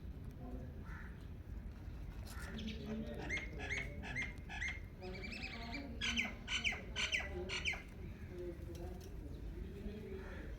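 Indian ringneck parakeet calling: a run of short, rising squawks, several a second, starting about two seconds in and growing louder before stopping about eight seconds in.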